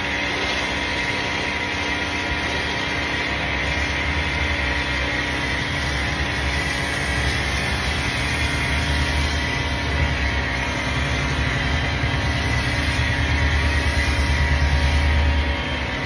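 Bosch Aquatak 125 electric pressure washer running steadily under load, a steady whine and hum from its motor and pump, with the hiss of the foam cannon spraying foam shampoo.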